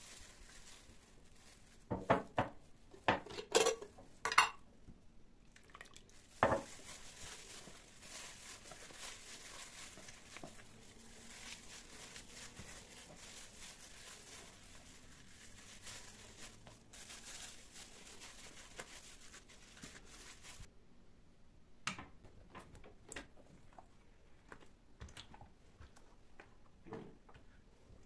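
Hand in a plastic glove kneading a minced-meat lahmacun topping in a plastic tub, with soft squishing and plastic rustling. A cluster of sharp knocks comes about two to four seconds in and another at about six seconds; the second half is quieter, with a few scattered clicks.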